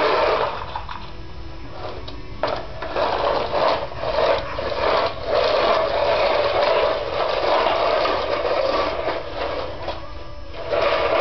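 The wheels of a plastic toy dump truck rolling and rattling on a ceramic tile floor as it is pushed along in uneven spurts, with a few sharp knocks.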